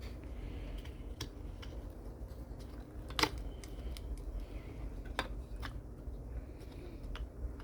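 Scattered sharp clicks and taps of small plastic and metal parts as the spur gear is fitted back into a 1/10 RC truck's drivetrain. The loudest click comes about three seconds in, over a low steady hum.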